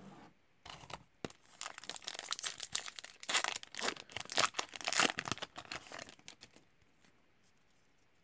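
Hockey card pack wrapper being torn open and crinkled: a run of crackling rustles lasting about six seconds, loudest in the middle.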